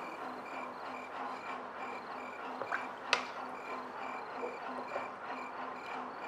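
Insect chirping pulsing steadily about two and a half times a second, with a sharp tap a little after three seconds in.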